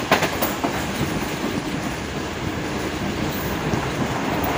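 Passenger train running at speed, heard from an open coach door: a steady rush of wheels on rail and air, with a couple of sharp clacks right at the start.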